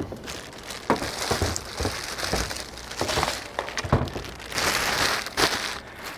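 Packaging crinkling and rustling, with scattered knocks and clunks, as the chainsaw is handled and unpacked from its box.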